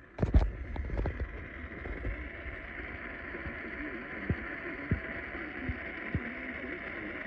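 Steady hissing radio static with scattered crackles and pops, starting abruptly with a loud pop: noisy, glitchy reception of a broadcast station.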